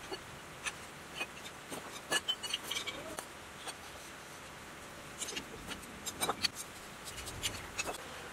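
Scattered metallic clinks, taps and scrapes of hand tools handling an old diesel engine's cast-iron casing as it is taken apart: a wrench and bar working at the bolts, in irregular clusters.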